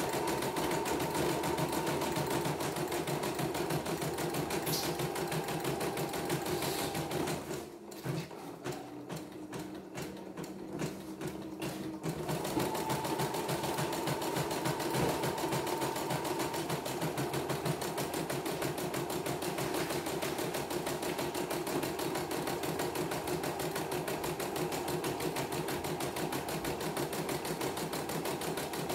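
CNY computerized embroidery machine stitching a test design after servicing, its needle running at a fast, even pace. About a quarter of the way through it goes lighter and quieter for a few seconds, then returns to full stitching.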